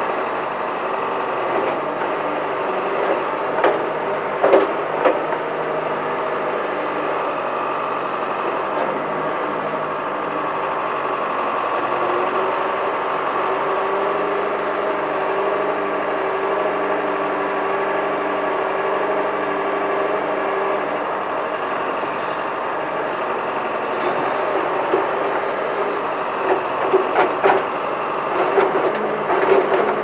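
John Deere 410 backhoe's engine running steadily, just above idle, while the hydraulics work the boom and bucket digging a trench. A few sharp knocks come from the bucket and linkage about four seconds in and again over the last few seconds.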